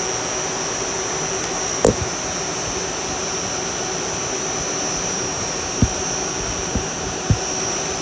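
Steady rushing machinery noise with a constant high-pitched whine, typical of running air-handling equipment. Over it come a few small clicks and knocks from handling the wiring, the first about two seconds in and three more near the end.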